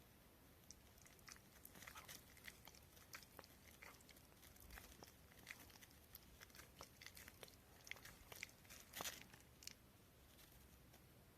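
Elderly Shiba Inu chewing and crunching its food: faint, irregular crunches, loudest around nine seconds in.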